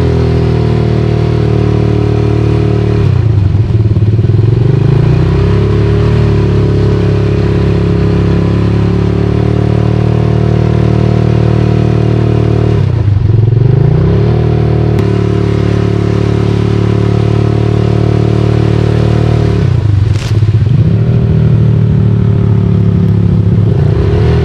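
ATV engine running close to the microphone on a rough trail, the revs dropping and climbing again three times as the throttle is eased off and reopened.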